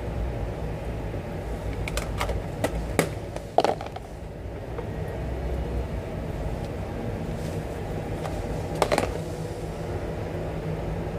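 Steady low hum, with a few light clicks and knocks from a small plastic container being handled over a bowl on the counter, clustered about two to four seconds in and once more near nine seconds.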